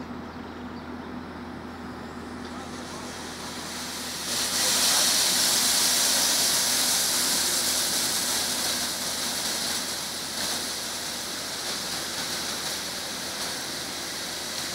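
Truck wheel washer's water jets switching on about four seconds in: a loud, steady spraying hiss of water blasting up through the grate, easing a little toward the end. A steady low hum runs underneath throughout.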